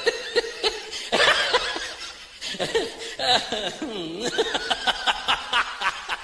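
Human laughter: a run of chuckling, with short rapid laughs of about four or five a second in the second half.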